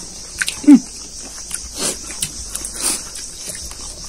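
Close-up eating sounds of people chewing and smacking their lips while eating rice and curry by hand, with a brief falling vocal sound about three-quarters of a second in, over a steady high hiss.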